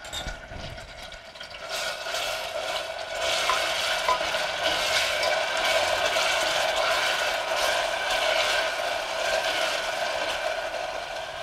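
Ground onion paste frying in hot oil, a steady sizzle that swells about two seconds in and holds, over a steady hum.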